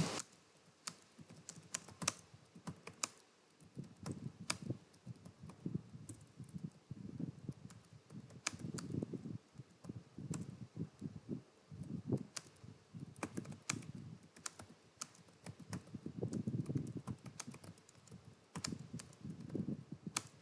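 Fast touch typing on a computer keyboard: a quick, uneven run of key clicks at several strokes a second, with short pauses, during a timed typing test.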